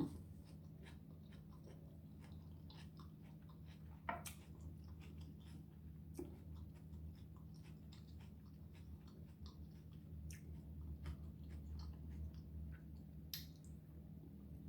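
A person chewing food close to the microphone: faint, soft mouth clicks and chewing, with a couple of sharper clicks about four seconds in and near the end, over a steady low hum.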